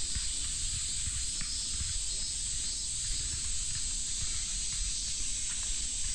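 Steady, high-pitched, sizzling drone of a summer cicada chorus, with an uneven low rumble underneath.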